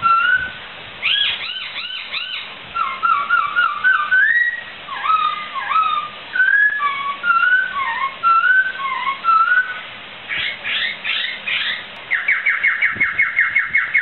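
Poksai (laughingthrush) singing a run of whistled phrases, each note sliding up and down, ending in a fast, even trill of about ten notes.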